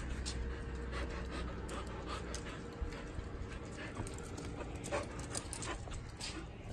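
Samoyed panting, a string of short, irregular breaths.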